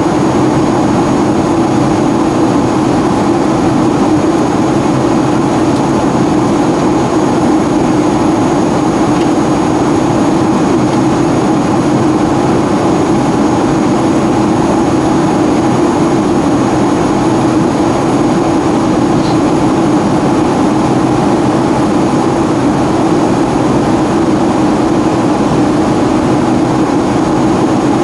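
Steady cabin noise inside a Boeing 757-200 in flight: the jet engines and airflow make an even, unchanging drone.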